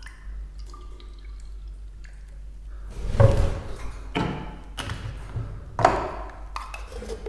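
Water poured in a few short splashes into a small bird-cage drinker holding pieces of cut garlic, starting about three seconds in.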